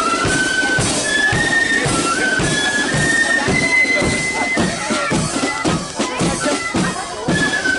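Marching flute band playing a tune: a high flute melody stepping from note to note over a steady drum beat.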